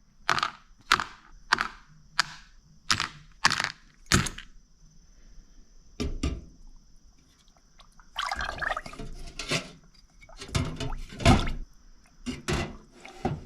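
Small metal parts of a disassembled Weber carburetor knocking and clinking as they are dunked into a container of cleaner to soak. About a dozen sharp knocks come at irregular spacing, with a longer rattle about eight seconds in.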